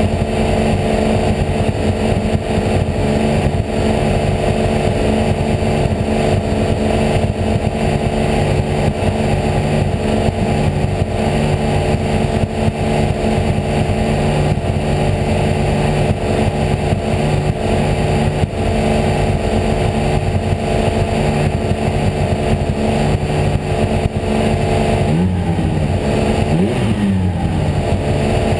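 Porsche 911 GT3 R's flat-six race engine heard from inside the cockpit, a loud, continuous engine note. The pitch holds fairly steady for most of the time, then swings up and down twice near the end.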